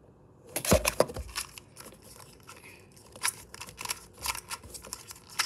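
GAN 2x2 speedcube being turned rapidly by hand: a dense run of quick plastic clicks and clacks, starting with a knock just under a second in.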